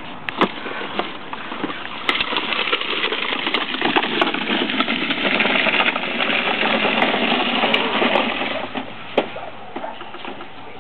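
Small toy lawn mower clattering and rattling as it is pushed along, with scattered sharp clicks. It grows louder about two seconds in and eases off near the end.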